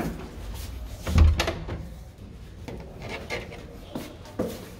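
A door being handled: a click, then a heavy thump about a second in as it closes, followed by a few lighter knocks and clicks.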